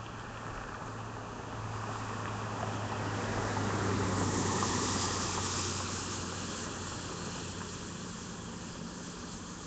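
A vehicle passing on a wet road: tyre hiss and spray swell to a peak about four to five seconds in, then fade. A steady low hum runs underneath.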